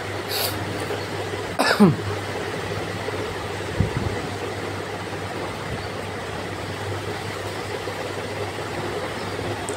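Steady background hum and hiss. Just under two seconds in there is one loud short sound that falls sharply in pitch, and about four seconds in a dull low thump.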